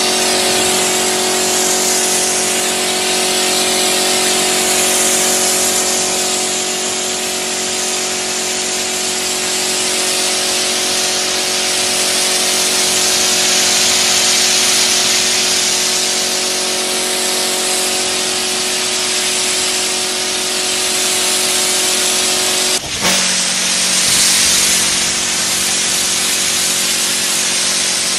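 Electric pressure washer running steadily, its motor and pump humming under the hiss of a foam lance spraying soap foam onto a car. There is a brief break in the sound about four-fifths of the way through, after which the hum carries on.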